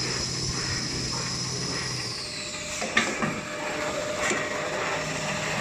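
Toilet paper production line machinery running, with a steady high motor whine and low hum; about two seconds in the whine falls in pitch as a motor winds down, and two sharp clicks follow.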